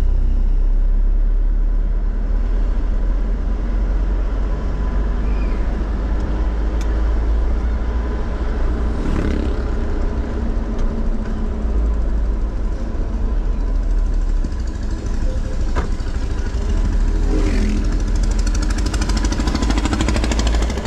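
Steady low rumble of a vehicle's engine and tyre noise while driving, heard from inside the cabin. Two brief louder swells come about nine and seventeen seconds in.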